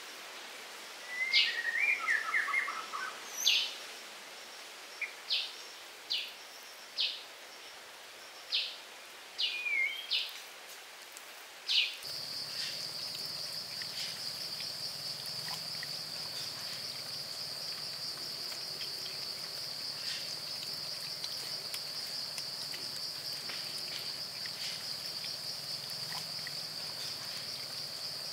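Outdoor nature ambience: a bird gives short, sharp high chirps every second or so, with one warbling call near the start. About twelve seconds in, the sound changes abruptly to a steady, high-pitched insect drone.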